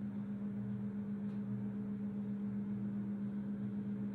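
Room tone: a steady low electrical hum with a faint hiss.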